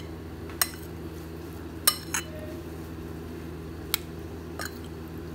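Metal spoon tossing chopped cucumber, onion and green chillies on a plate, scraping and clinking against it in several sharp, irregular clinks. A steady low hum runs underneath.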